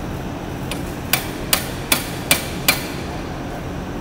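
Five quick hammer blows on metal, about two to three a second, starting about a second in: the transmission's input shaft bearing being driven in far enough for its snap ring to fit.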